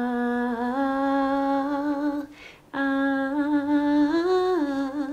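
A woman singing unaccompanied in two long held notes with a short breath between them; the second note lifts briefly near the end and falls back.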